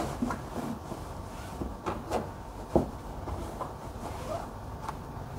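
Heavy furnishing fabric rustling as it is draped and smoothed over a wooden armchair by hand, with a few soft knocks and taps scattered through it.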